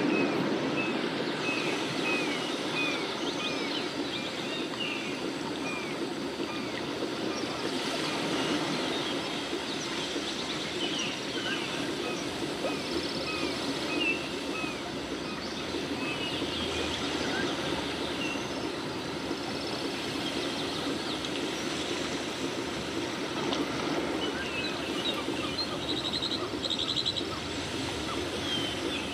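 Outdoor background noise, a steady rush, with small birds chirping over it: many quick chirps in the first several seconds, then scattered ones.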